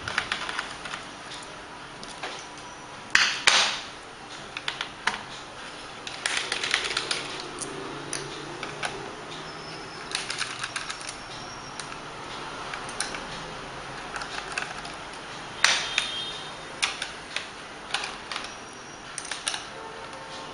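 Small screwdriver backing screws out of the plastic base of an Acer laptop: irregular clicks and taps of tool and screws on the plastic case, with a few sharper knocks.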